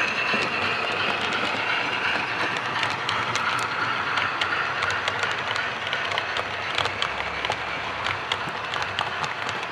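Model train running along the layout track: a steady rolling noise with many quick, irregular clicks of the coach wheels over the rail joints.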